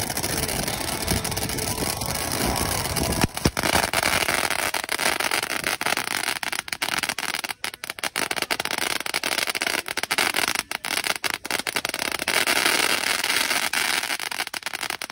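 Ground fountain firework spraying sparks: a continuous rushing hiss full of fine crackles. There is a sharp bang about three and a half seconds in, and after it the spray is louder and more crackly.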